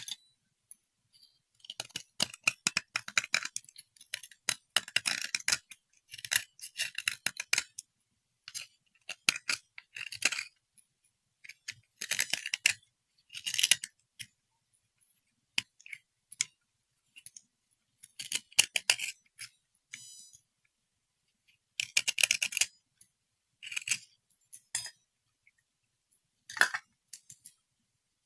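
Repeated short bursts of rapid clicking and clinking from small hard objects being handled. Each burst lasts a second or two, with quiet pauses between them.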